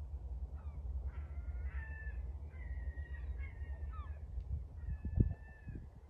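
Birds calling: several drawn-out high calls and short cries over a low rumble of wind on the microphone, with a brief thump about five seconds in.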